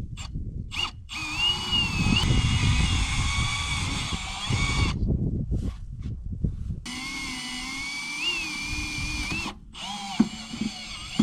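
Cordless Milwaukee drill boring holes in wood, run in two long goes of about four and three seconds with a short pause between, the motor's whine wavering in pitch as the bit loads.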